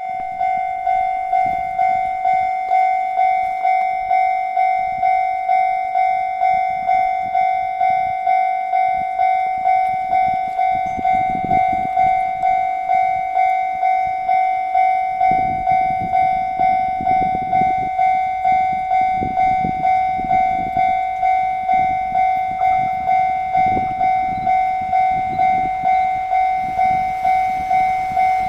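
Japanese railway level-crossing alarm bell ringing: one electronic ding repeated evenly, about one and a half strikes a second, each fading before the next. Low rumbling from the approaching train grows in the second half and gets louder near the end.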